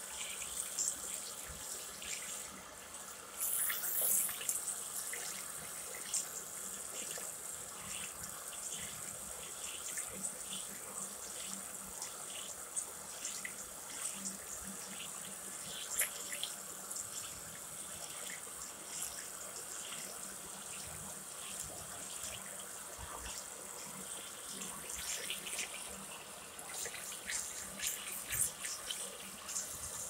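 Water running steadily from a single-lever mixer tap into a Twyford Portman ceramic wash basin, splashing over a hand held under the stream. It is briefly louder about four seconds in.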